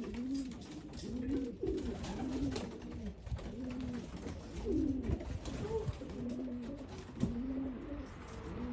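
Racing pigeons cooing in a loft: repeated, overlapping low coos that rise and fall, with a few faint clicks and taps among them.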